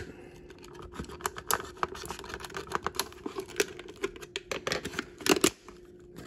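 Stiff clear-plastic blister pack of an M2 die-cast model truck being prised off its cardboard backing card: a run of plastic crackles and sharp clicks, with the loudest crackle a little over five seconds in.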